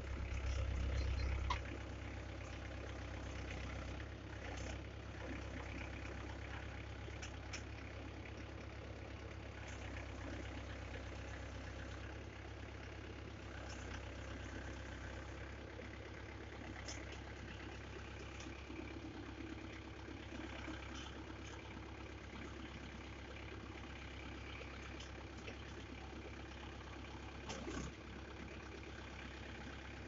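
Engine of a Soil Master backhoe running steadily as the digging arm works, briefly louder for about the first second and a half. A single short knock near the end.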